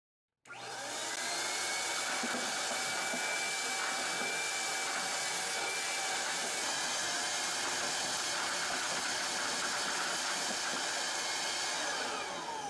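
Homemade vacuum cleaner's 110-volt electric motor switched on about half a second in, whining up to speed, then running steadily with a loud rush of air. Near the end it is switched off and winds down with a falling whine.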